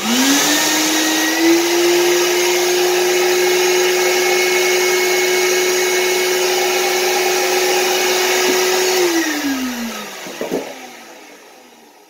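Shop-Vac-made Bucket Max 6.5-amp lid vacuum switched on, its motor whining up to speed and then running steadily, pulling air through a wide 1 7/8-inch hose. About nine seconds in it is switched off and spins down with a falling whine, and a light knock follows.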